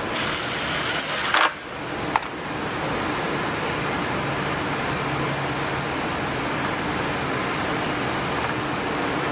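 Makita cordless driver running briefly on a fender bolt, ending with a short loud burst about a second and a half in, then a single click. After that only a steady room hum remains.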